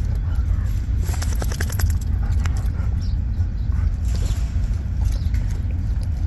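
Steady low rumble of wind buffeting the microphone, with scattered light scrapes and clicks as Labrador puppies root around a bucket and bedding in their pen; the scraping is busiest about a second in and again near four seconds.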